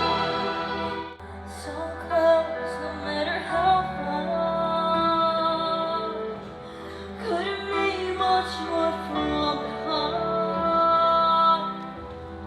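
Music: a woman singing a slow melody in long held notes over an instrumental accompaniment.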